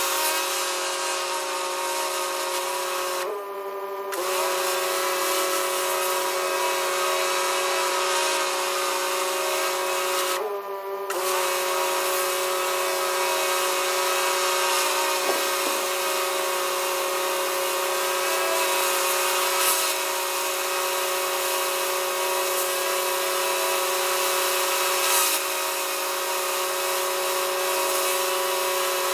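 Pressure washer running and spraying concrete: a steady machine whine over a hiss of high-pressure water, cut off briefly twice, about three and ten seconds in.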